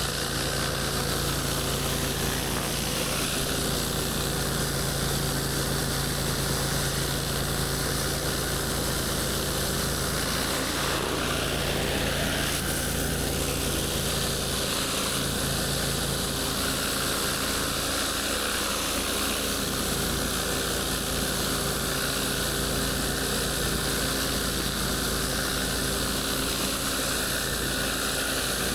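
Pressure washer's engine running steadily, with an even hiss of water spraying under high pressure.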